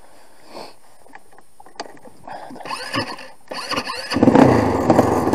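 Quad bike (ATV) engine being started: some cranking and handling noise, then the engine catches about four seconds in and runs loudly.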